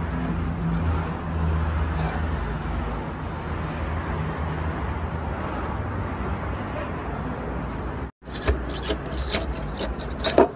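A steady low background hum. Then, after a brief cut, a run of sharp metallic knocks and scrapes, loudest near the end: a long metal rod and a long-handled metal scoop working tandoor-baked samsa loose from the inside wall of a clay tandoor.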